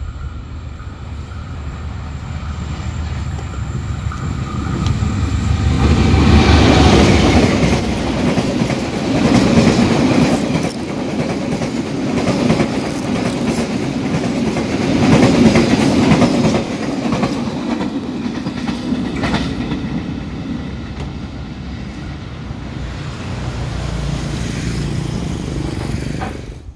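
Passenger train hauled by a CC 201 diesel-electric locomotive approaching and passing close by. A rising rumble grows loud about six seconds in, with the wheels clicking over rail joints as the coaches go by, and the sound cuts off near the end.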